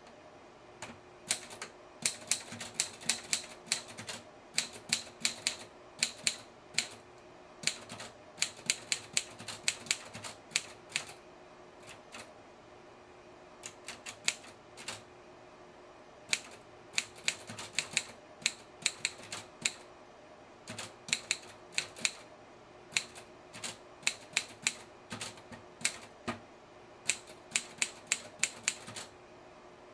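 Typewriter keys striking paper in quick irregular runs of keystrokes, broken by short pauses of about a second between runs.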